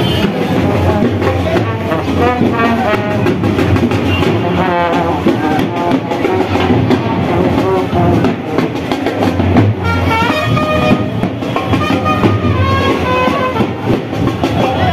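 Marching brass band playing a melody on trumpets and large brass horns over bass drum and side drum beats.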